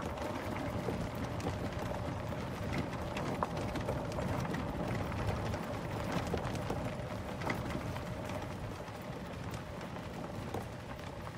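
Footsteps on a sandy path at a walking pace, heard as a run of small irregular ticks and scuffs over a steady low rumble, with a faint steady hum underneath.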